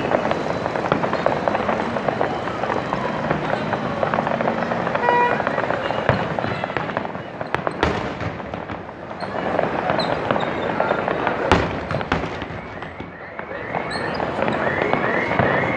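Aerial fireworks display: dense, continuous crackling of bursting shells, with louder single bangs about eight and about eleven and a half seconds in.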